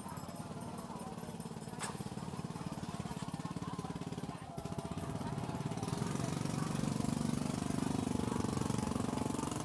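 A small engine running steadily with a rapid even pulsing, getting louder about six seconds in; a single sharp click about two seconds in.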